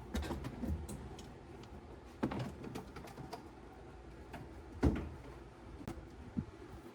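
Scattered light clicks and handling noises, with sharper knocks about two seconds in and near five seconds, from hand work pulling out a car's wiring harness and its plastic connectors.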